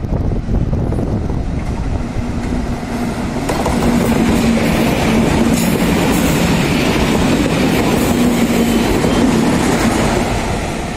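A string of Indian Railways WAG-series electric freight locomotives running in multiple passes close by, with wheel clatter on the rails and a steady low hum from the locomotives. It gets louder about a third of the way in as they draw level and eases off near the end.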